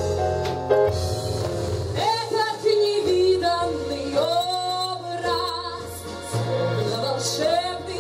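A woman singing into a handheld microphone over backing music with a steady bass line. Her voice comes in about two seconds in, with wavering, gliding held notes.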